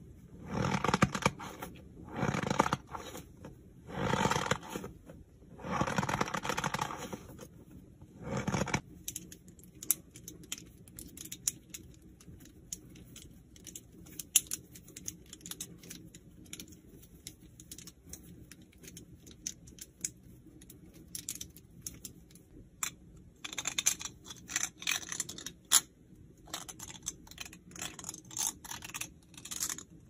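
Hand-held fidget toys being squeezed and twisted: several rustling, crinkling squeezes, about a second apiece, over the first nine seconds, then a long run of fine light clicks, with more squeezes and clicks near the end.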